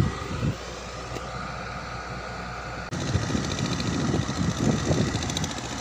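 A steady low mechanical hum, joined about three seconds in by a louder, uneven rumble.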